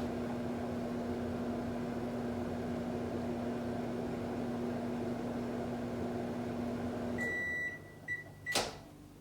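A microwave oven running with a steady hum that stops about seven seconds in, as the heating cycle ends. It gives a high beep and then two shorter beeps to signal it is done, followed by a sharp click near the end.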